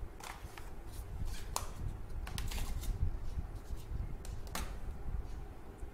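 Hands handling smartphone packaging, cardboard box pieces and a clear plastic phone case, making a scatter of light clicks and rustles. The sharpest clicks come about a second and a half in and again near four and a half seconds.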